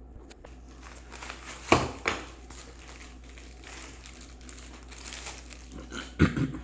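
Packaging crinkling and rustling as a tripod is unboxed, with sharp knocks about two seconds in and again near the end.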